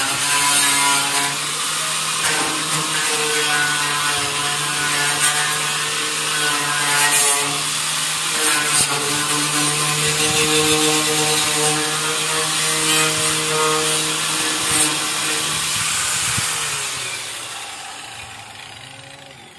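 Corded electric power tool running steadily as it scrubs rust off the tricycle's metal sidecar frame, with a constant motor hum under a harsh scraping hiss. It is switched off about three-quarters of the way in and winds down.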